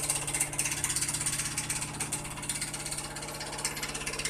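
LG front-loading washing machine running: a steady motor hum with a fast mechanical rattle.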